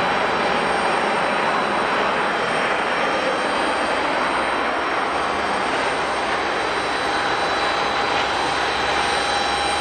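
Jet airliner's engines running steadily: an even rush with several steady high whining tones over it.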